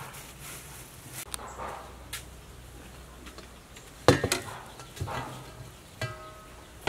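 Kitchen handling sounds: a sharp knock about four seconds in, then a few lighter knocks as a metal cleaver and a stainless steel bowl are handled on the table. Near the end the bowl rings briefly.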